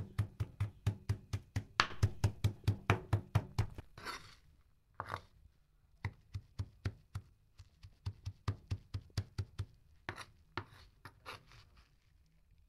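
Large kitchen knife chopping finely shredded mustard greens on a plastic cutting board: rapid, even knocks about five a second. A little under four seconds in the chopping stops for two scraping sounds as the greens are pushed back together, then resumes slower and softer until near the end.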